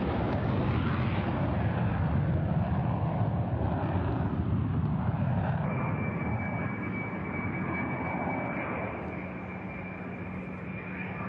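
Jet aircraft in flight: steady rushing engine and air noise, heaviest in the low range, with a steady high whine joining about halfway through.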